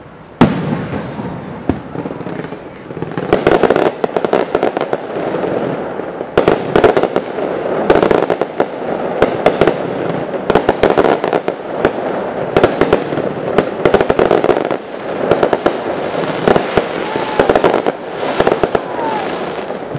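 Aerial fireworks display: one sharp shell burst about half a second in, then from about three seconds on a dense, continuous run of sharp pops and crackling from crackle and glitter shells bursting overhead.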